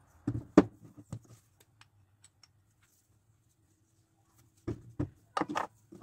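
Steel parts of a home-made engraver vise knock and clink together as they are handled and fitted. There is a sharp knock about half a second in and quiet through the middle, then a cluster of knocks near the end.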